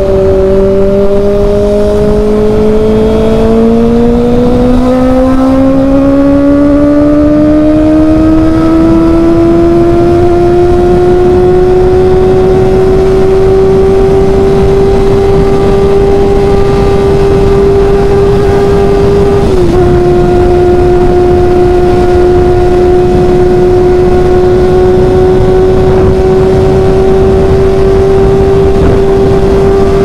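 Kawasaki ZX-25R's 249 cc inline-four engine through an SC-Project titanium exhaust, pulling under throttle: a high whine that rises steadily in pitch for about ten seconds, then holds high. There is a brief dip in pitch as it shifts up a gear about 20 seconds in. Wind rush from highway speed runs underneath.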